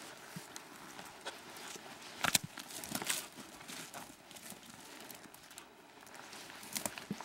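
Footsteps and rustling through dry low brush on rocky ground: scattered crunches and light knocks, the sharpest about two and three seconds in.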